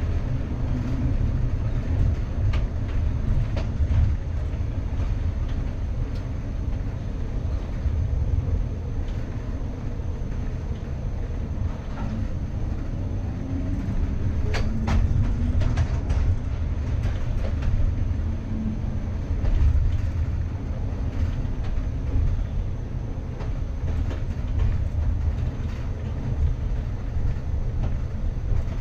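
PCC streetcar rolling along the track, heard from inside the cab: a steady low rumble with scattered clicks and clacks from the wheels on the rails, two sharper clacks about halfway through.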